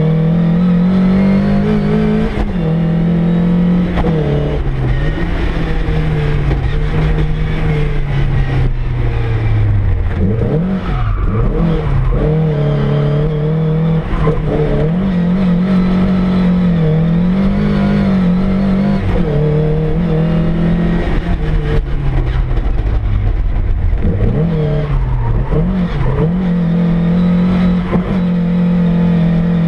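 Car engine heard from inside the cabin, driven hard on a track: its pitch keeps rising and falling as it revs up through the gears and drops off, with deeper drops about a third of the way in and again near the end.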